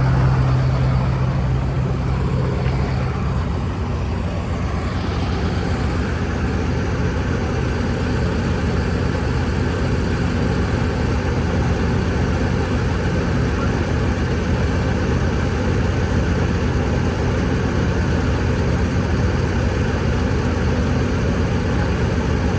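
Heavy diesel engine running steadily at a low, even speed; a strong low hum present at the start fades out about three seconds in.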